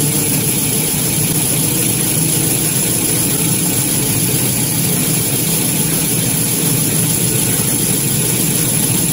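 Toilet paper and kitchen towel converting line running: a steady mechanical noise from its drive motors and chain conveyors, with a thin high whine held steady above it.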